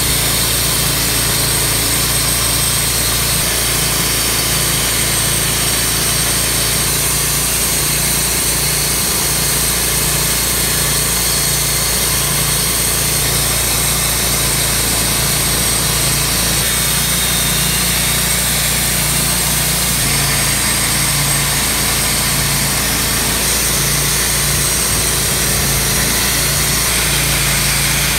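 Wood-Mizer portable bandsaw mill running steadily, its engine at full speed while the band blade saws through an oak log, with a thin high whine over the engine.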